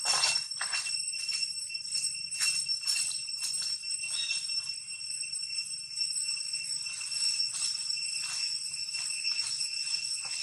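Insects droning outdoors: a steady, high-pitched shimmering whine made of a few fixed tones, with scattered faint clicks and rustles like dry leaves.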